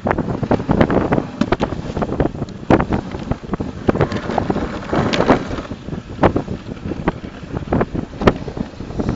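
Dog sled running over a packed snow trail: a continuous scraping hiss of the runners on snow, broken by many irregular knocks and jolts, with wind buffeting the microphone.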